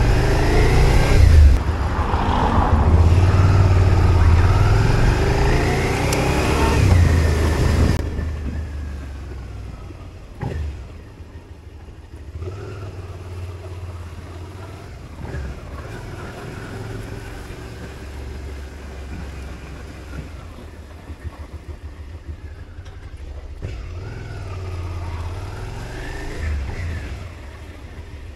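Motorcycle engine rising and falling in pitch as it accelerates, with loud wind noise on the helmet-mounted microphone; about eight seconds in the wind cuts out and the engine eases to quieter low-speed running, picking up briefly a couple of times.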